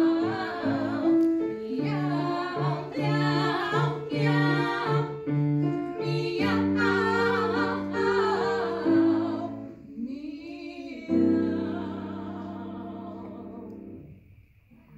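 Two women singing a comic operatic duet on meows, with grand piano accompaniment. The voices stop about ten seconds in, and a final piano chord rings and fades away.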